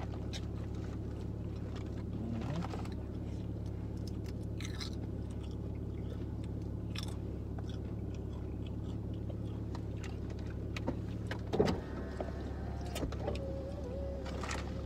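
Car engine idling, a steady low hum in the cabin, with scattered crinkles of a chip bag and crunching of chips over it, and one louder sharp knock or crackle late on.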